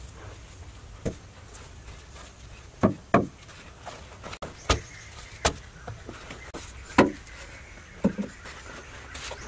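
Irregular wooden knocks and thuds, about eight in all, some in quick pairs, as wooden poles are handled and set upright into a packed dirt floor.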